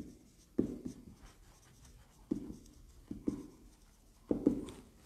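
Writing by hand: a run of sharp taps and strokes of a writing tool on a surface, about six of them spaced unevenly, some in quick pairs.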